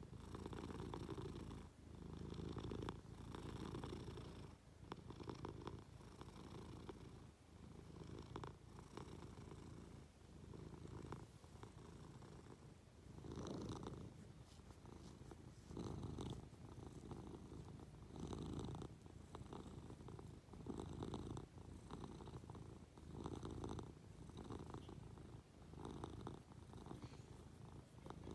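Munchkin cat purring right at the microphone, a low rumble that swells and fades every second or two.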